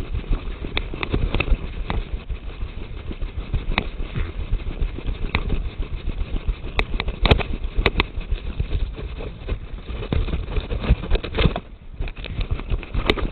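Footsteps crunching and rustling through dry leaves and brush while walking, with a few sharp snaps in the middle and a brief lull near the end.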